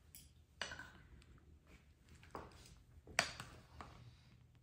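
A few light clicks and taps of a spatula against a mixing bowl and a small glass cup as thick chocolate yogurt is spooned from one into the other; the sharpest tap comes a little past three seconds in.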